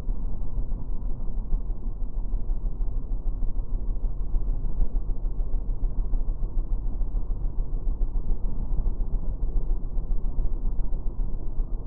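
Steady low rumble of wind and road noise on a motorcycle rider's helmet-mounted camera while riding, dull and deep with no high sounds in it.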